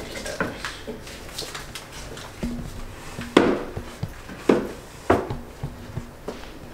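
Handling sounds as a backpack is packed: light rustling and several sharp knocks, the loudest about three and a half seconds in, with two more about a second and a half second apart after it.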